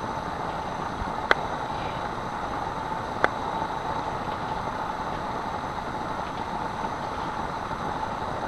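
Steady rushing hiss of bats streaming out of a cave entrance on their evening emergence flight, with two short sharp clicks, one about a second in and one about three seconds in.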